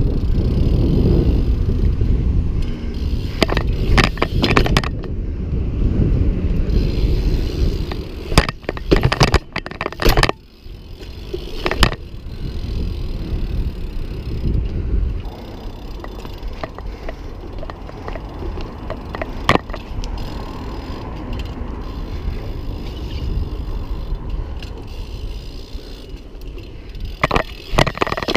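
BMX bike rolling over brick paving: a steady low rumble of tyres and rushing air, broken by sharp knocks and clatters of hops and landings. The knocks come in a cluster about nine to ten seconds in and again near the end, and the rolling grows quieter after about fifteen seconds.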